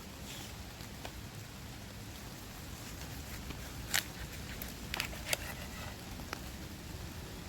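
Steady rain falling, with a handful of sharp clicks and taps over it, the loudest about four seconds in and two more close together around five seconds.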